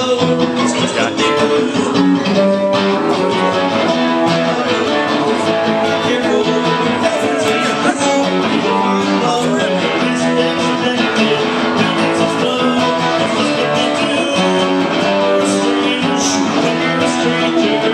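Acoustic guitar strummed in a steady rhythm, played live.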